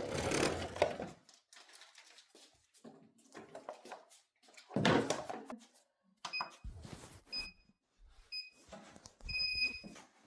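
A treadmill's control console beeping as its buttons are pressed: four short, high electronic beeps in the second half, the last a little longer. Two louder rushes of noise come at the start and about five seconds in, with light knocks and handling sounds between.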